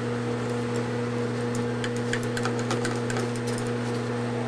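A steady low hum, with scattered light clicks of plastic toy dishes and utensils being handled.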